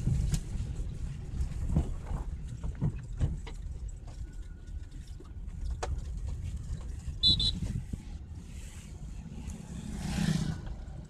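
A car driving along, with engine and road rumble heard from inside the cabin and scattered knocks and rattles over it. A short high chirp comes about seven seconds in.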